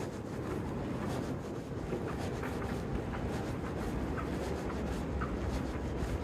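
Street ambience heard while walking: a steady low rumble of wind on the microphone, with faint irregular footstep clicks.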